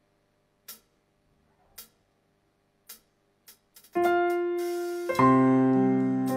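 A few faint, evenly spaced clicks, then about four seconds in an electric piano starts playing sustained chords, a new chord coming in about a second later: the opening of a song's intro.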